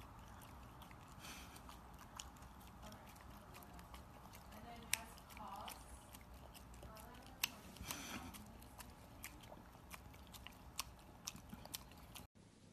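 English bulldog puppy chewing and crunching crumbly food, with irregular sharp crunches and mouth smacks, a few louder ones about 5 and 7.5 seconds in. The sound cuts off abruptly near the end.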